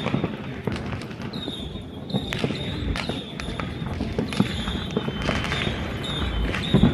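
Many fireworks and firecrackers going off at a distance across a city: scattered sharp bangs and crackles over a constant rumble, with a high, nearly steady whistle running through most of it from about a second in.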